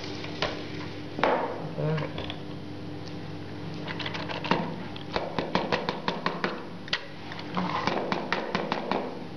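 Kitchen utensils clicking and tapping against a dish in quick runs of sharp little strikes, thickest in the middle of the stretch, with a brief murmur of voice near the start.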